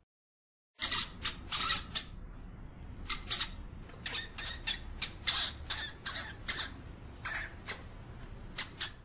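European hamster giving a dozen or so short, harsh hissing calls in quick clusters, starting after a brief silence, over a faint low background noise.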